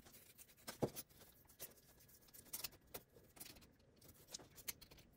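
Faint, irregular scraping and clicking of an X-Acto knife cutting a slit into the edge of a skull mask's jaw piece, with the sharpest click about a second in.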